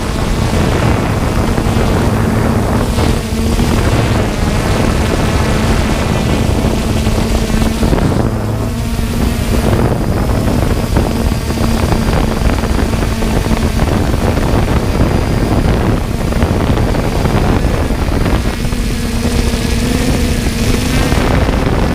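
3DR Solo quadcopter's electric motors and propellers running, a steady hum mixed with loud rushing wind noise on the onboard microphone. The hum drops out briefly around eight seconds in and shifts slightly higher near the end.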